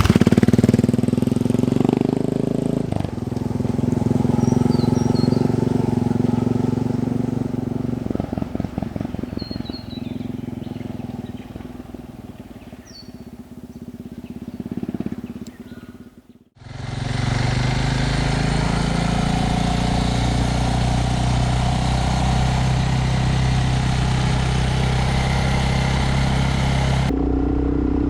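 Suzuki DR650 single-cylinder engine riding away, its note rising and falling with the throttle. After a cut about two-thirds of the way in, the engine runs steadily at speed under a broad hiss.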